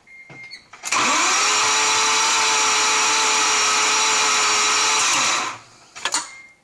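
Mazda RX-7 rotary engine being cranked by its starter motor for about four and a half seconds. The whine spins up quickly, holds an even pitch, then stops without the engine catching. The owner suspects blown apex seals.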